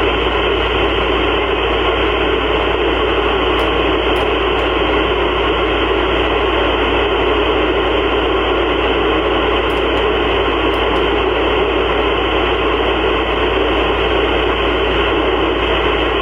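Steady FM static hissing from an Icom IC-705 receiver tuned to the PO-101 (Diwata-2B) amateur satellite's 2 m downlink, with nobody transmitting through the satellite.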